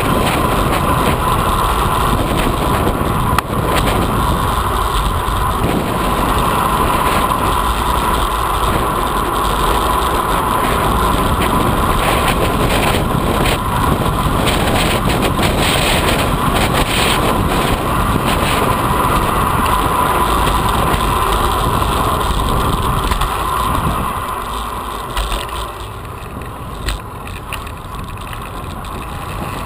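Wind rushing over the microphone of a camera on a moving road bike, a loud steady noise that grows quieter about six seconds before the end.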